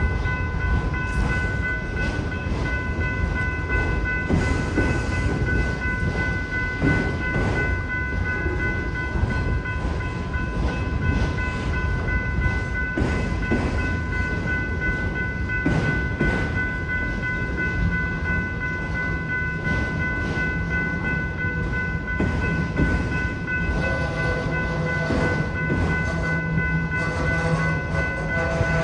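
Autorack freight cars rolling steadily past a grade crossing, the wheels rumbling and clacking on the rails, while the crossing bell rings without pause. A low hum with a rising-level tone joins in during the last few seconds.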